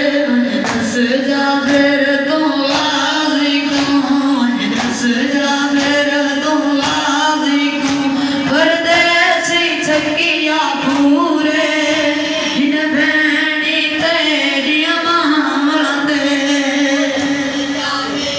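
Shia noha lament sung through a microphone by a lead singer, with a group of men beating their chests (matam) in unison: sharp slaps keeping time about once a second under the sustained singing.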